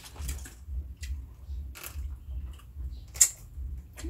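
Lychees being peeled by hand and eaten: irregular crackling of the thin shells and wet chewing and lip smacks, with one sharper, louder smack about three seconds in. A steady low hum runs underneath.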